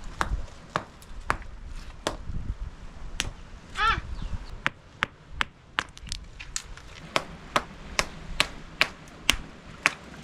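A hand-held stone striking a rocky shore face again and again to knock oysters loose: close to twenty sharp, uneven knocks, coming faster in the second half. About four seconds in comes a brief falling squeal.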